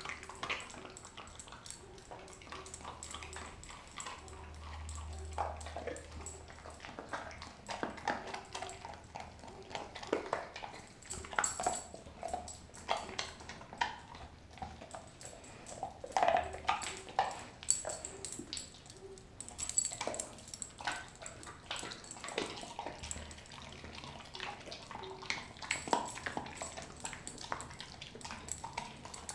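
Doberman eating raw beef tail and chicken from a stainless steel bowl: irregular wet chewing, licking and crunching of meat and bone.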